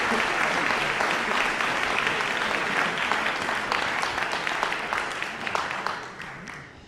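Audience applauding, a dense patter of clapping that dies away over the last second or so.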